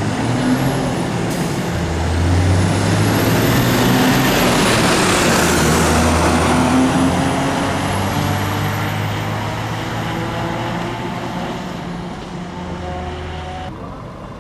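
Fire engine's diesel engine and tyres driving past close by, building to its loudest about five seconds in and then fading away, with a high whine that rises and then falls as it passes.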